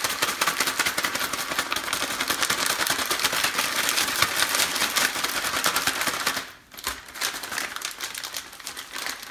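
A plastic vacuum-sealer bag holding a beef cut and dry curing rub being shaken hard, the plastic crinkling and rattling in a fast, dense crackle to coat the meat. It breaks off briefly about six and a half seconds in, then goes on more softly.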